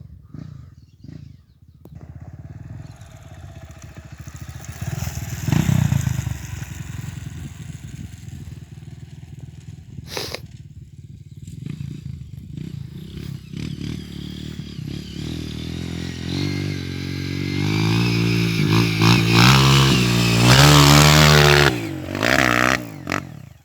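Motorcycle engine revving up and down as it climbs a hill. It grows louder in the last third, with the pitch swinging up and down, and drops away just before the end.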